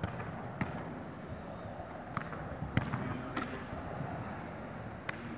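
A football being kicked: several sharp thuds spread through the few seconds, the loudest about three seconds in, over a steady outdoor hiss.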